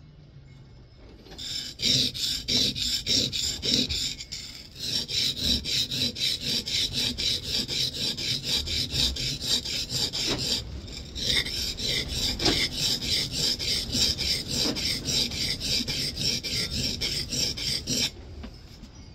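Steel scrub plane iron rubbed back and forth on a coarse Norton oilstone: rapid, rhythmic scraping strokes as the cambered bevel is honed. It starts about a second and a half in, with two short breaks around four and eleven seconds in.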